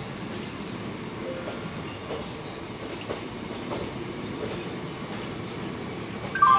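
Passenger express train coaches running through a station at speed, a steady rumble with wheel clatter over the rail joints. Near the end a loud melodic tone starts.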